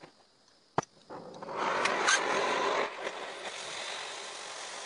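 Cutting torch burning a vent hole through the steel plate of a smoker fire box. A click just under a second in, then a hissing rush starts that is loudest for about a second and a half and then settles to a steadier, lower hiss.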